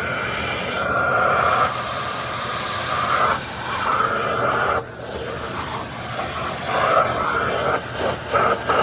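Aspiron bagless canister vacuum cleaner running, its motor whine and suction noise rising and dipping as it works, with a short drop about five seconds in and a few quick breaks near the end.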